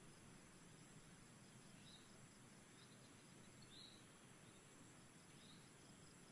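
Near silence: faint outdoor background hiss with three faint, short high chirps.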